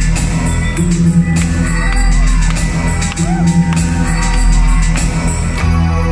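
Synth-pop band playing live through a club PA: a steady electronic drum beat, a repeating synth bassline and gliding synth lines, heard from within the audience.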